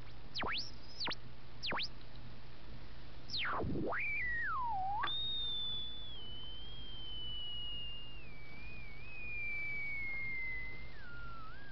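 Whistling whine from a home-built Tesla transformer and its transistor pulse driver, the pitch sliding as the drive frequency is tuned with a screwdriver. A few quick swoops down and back up come first, then a deep dip, then a wavering tone that drifts slowly lower and falls further near the end. A steady low hum lies underneath.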